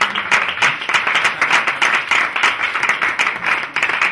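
People applauding: many hand claps close together, steady throughout.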